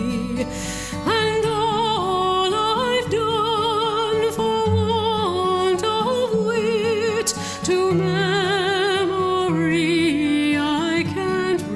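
Slow song: a solo voice sings long, held notes with a strong vibrato, stepping from note to note, over a soft, sustained low accompaniment.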